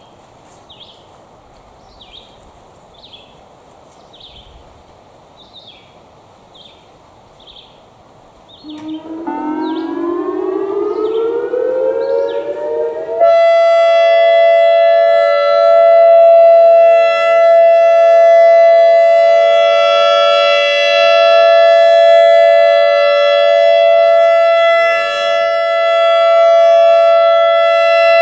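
ACA Alertronic AR-1600 electronic storm siren starting up about a third of the way in: its tones glide upward for about four seconds, then jump to a loud steady tone that holds. Before it starts, a high chirp repeats more than once a second over quiet outdoor background.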